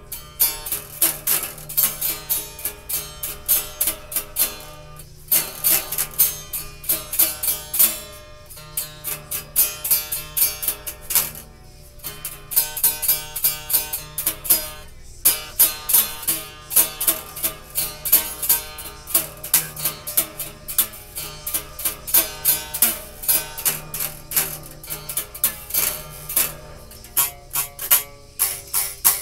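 Acoustic guitar played by hand as a quick, steady run of single plucked notes, several a second, broken by short pauses a few times.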